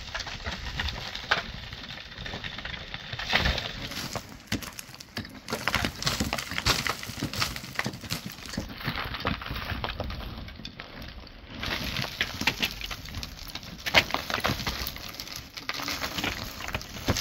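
Hand digging and clearing of dry packed earth on a mud-and-timber roof: shovel blades scraping and chopping into the dirt, clods and rubble falling and clattering, and irregular knocks against the wood. One sharp knock stands out late on.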